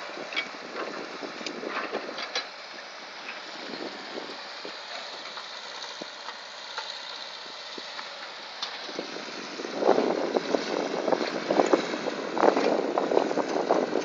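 Diesel engines of a crawler bulldozer and excavator running in the distance while earth is pushed along the embankment, with wind buffeting the microphone in two louder rough spells about ten and thirteen seconds in.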